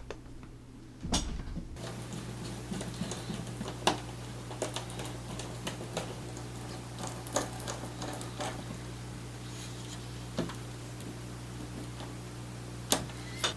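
Scattered light clicks and taps of small laptop parts and cables being handled and fitted, over a steady low hum. The sharpest clicks come about a second in and near the end.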